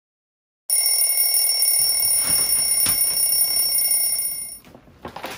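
Alarm clock ringing: a loud, steady, high-pitched ring that starts about a second in and cuts off suddenly near the end, followed by faint rustling.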